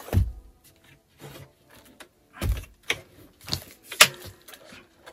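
Several sharp knocks and clunks from a loudspeaker and its packaging being handled, the sharpest about four seconds in.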